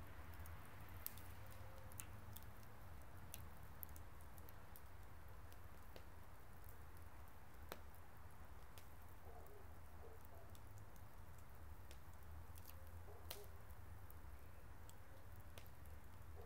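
Wood fire burning in a metal fire-pit bowl, crackling faintly with irregular sharp pops and snaps over a low steady rumble.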